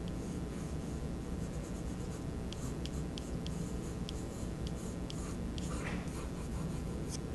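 Drawing pencil scratching on paper in a string of short, quick strokes as bone outlines are sketched, over a steady low room hum.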